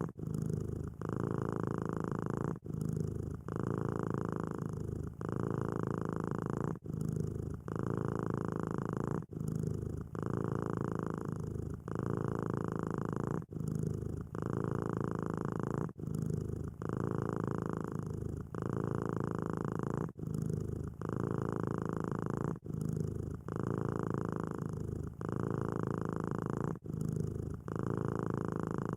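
Domestic cat purring: a continuous low purr that pulses in a regular rhythm, with a short break about once a second.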